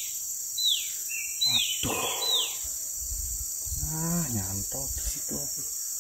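Steady high-pitched insect chorus of crickets, with a bird giving several short whistles that slide downward in pitch in the first half. Around four seconds in there is a brief low voice-like sound with some rumbling.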